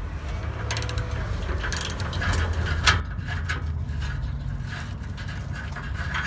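Ratchet clicking in short runs as an O2-sensor socket loosens the oxygen sensor from the exhaust pipe, with one sharp, louder click about three seconds in; after that only faint ticks as the loosened sensor is turned. A steady low rumble runs underneath.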